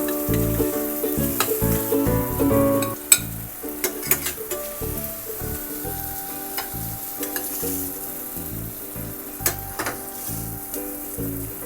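Zucchini slices sizzling as they fry in olive oil in a pan, with a few sharp clicks, the loudest about three seconds in, over background music.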